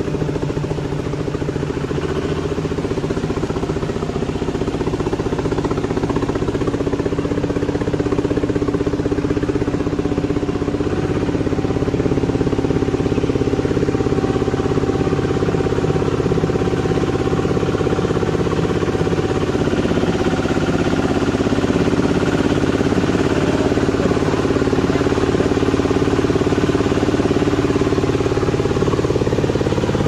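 Single-cylinder diesel engine of an e-taek, a two-wheel walking tractor pulling a passenger trailer, running steadily at an even pace with rapid regular firing pulses, heard close up from aboard the trailer.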